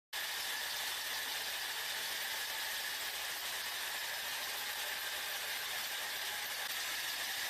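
Steady hiss and whir of factory machinery running, starting abruptly just after the beginning and holding level throughout, with a faint steady whine underneath.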